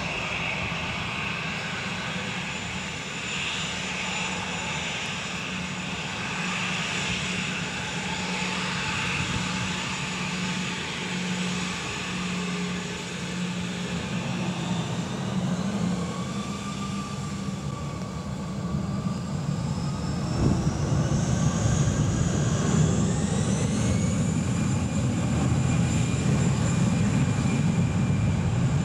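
Twin jet engines of an easyJet Airbus A319 running near idle with a steady hum and whine. About 20 seconds in they spool up for takeoff: the whine rises in pitch and the sound grows louder.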